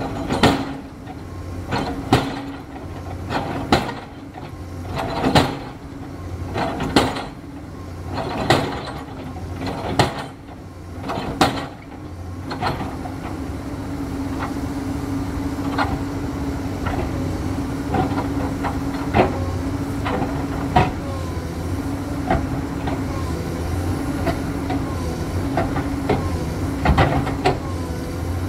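Komatsu PC210 hydraulic excavator's diesel engine running while its bucket drives steel sheet piles into the ground, with sharp knocks about every second and a half for the first twelve seconds. After that the engine runs louder and steadier under load as the bucket presses down on a pile, with a few scattered knocks.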